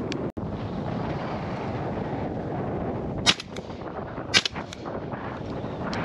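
Two shotgun shots about a second apart, each followed by a few fainter cracks, over steady wind buffeting the microphone.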